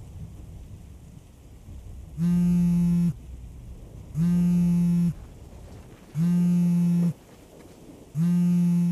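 A mobile phone vibrating on a bedside table for an incoming call: four steady, even buzzes, each just under a second long and about two seconds apart, over faint rain.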